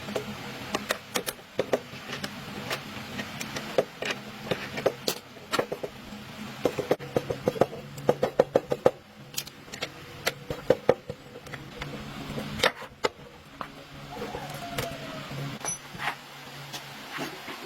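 Metal tools and parts clicking and clinking, with a quick, even run of clicks in the middle, over a low steady hum.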